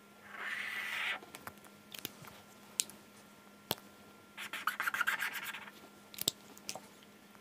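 Pen drawing on paper. There are two scratchy stretches of strokes, about a second each, one near the start and one about halfway through, with scattered light taps and clicks of the pen between them.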